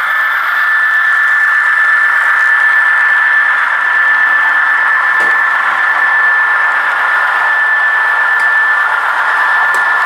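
A model train locomotive's small electric motor and gearing running steadily, a high whine over a hiss, with a couple of faint clicks about halfway and near the end.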